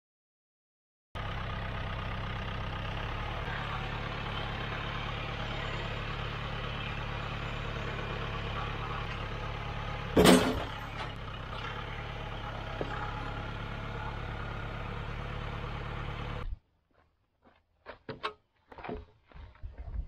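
Farm tractor engine running steadily under low load. There is one loud thump about ten seconds in, and the engine sound cuts off suddenly near the end, leaving a few faint knocks.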